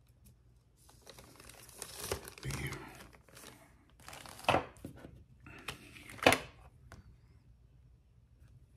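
Rummaging through surgical instruments: a crinkling rustle of handled material, with three sharp knocks, the loudest about six seconds in.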